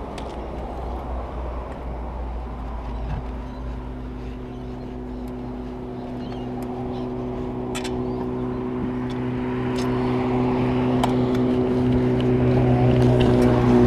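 A motor vehicle's engine on the road, a steady hum that grows louder through the second half as it draws near, its pitch dipping slightly near the end. A few light clicks sound over it.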